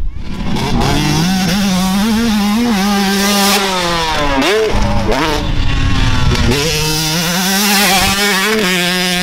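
Yamaha YZ125 two-stroke dirt bike engine running through an aftermarket expansion-chamber pipe, its pitch rising and falling with the throttle and dropping sharply about four and a half seconds in before picking back up.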